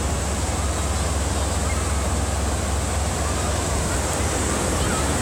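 Steady wash of ocean surf with a low wind rumble on the microphone.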